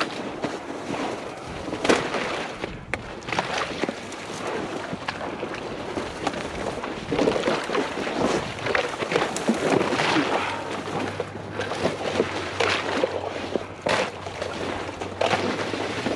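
Irregular water sloshing and splashing from someone moving through shallow swamp water, with wind on the microphone. A low steady hum comes in about ten seconds in.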